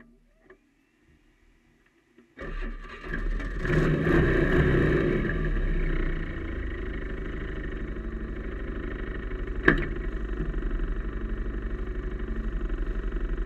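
Polaris Magnum 425 ATV engine starting about two seconds in, rising briefly, then idling steadily with an even pulse. A sharp click comes about two-thirds of the way through.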